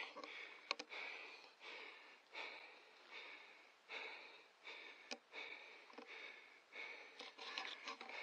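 A squirrel calling: a faint, even series of short barks, a little more than one a second.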